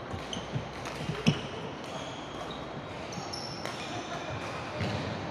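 Badminton rally: rackets striking the shuttlecock, footfalls and shoes squeaking on the wooden court. The loudest hit comes a little over a second in, with another burst of impacts near the end.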